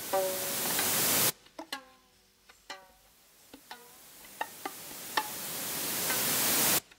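Electronic music: a rising hiss cuts off suddenly about a second in. Sparse short, plucked-sounding notes follow, then a second hiss builds slowly and stops abruptly just before the end.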